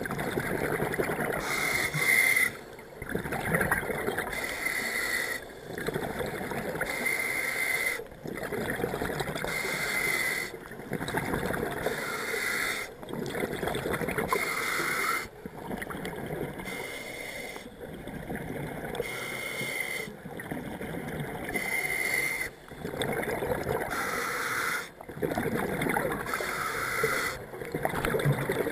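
Scuba diver breathing through a regulator underwater. A hissing inhale through the demand valve alternates with a rush of exhaled bubbles, in a steady cycle about every two to three seconds.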